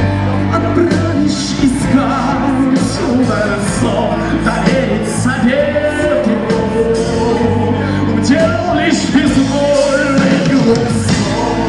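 Live rock band playing loudly, with a full band of guitars, bass and drums, in a large hall.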